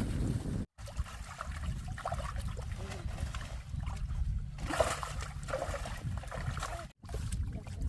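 Water splashing and trickling over a heavy low rumble of wind on the microphone, with faint voices in the background; the sound drops out briefly twice.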